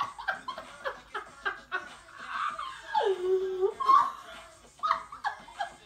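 Two young women laughing hard in quick bursts of giggles, with one long held cry about three seconds in.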